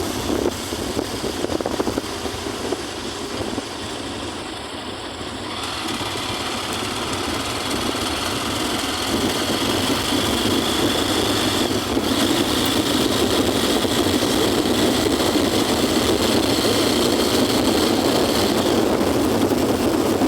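Vehicle driving on a rainy street: steady engine hum under a hiss of tyres and rain on the wet road. The hiss grows louder about five seconds in and again about nine seconds in.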